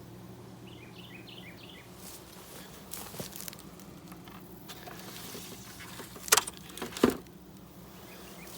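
Honeybees buzzing steadily around an opened hive. Two sharp clicks come about six and seven seconds in, from the hive's nuts and hardware being handled.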